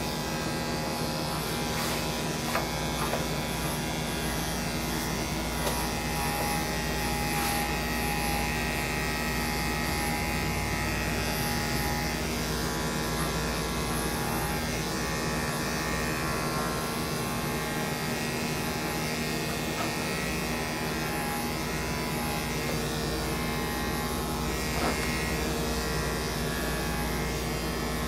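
Corded electric dog grooming clippers running steadily, a constant buzz as they shave the dog's coat.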